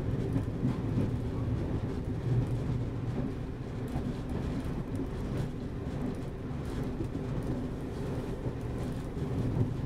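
Class 122 single-car diesel railcar running at about 20 mph, heard from inside the driver's cab: a steady low drone of the underfloor diesel and wheels on the rails, with a few faint clicks.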